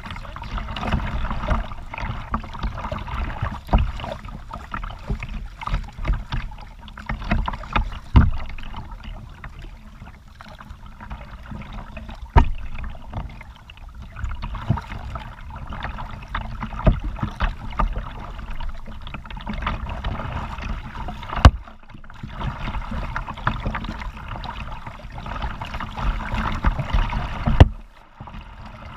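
Kayak paddling: water splashing and dripping off the paddle blades with each stroke, with sharp knocks now and then as the paddle strikes the hull.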